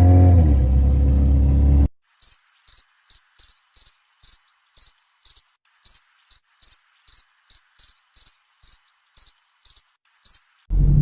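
A vehicle's engine rumble cuts off abruptly about two seconds in. Then a cricket chirps on an otherwise silent track: short, high chirps, about two to three a second.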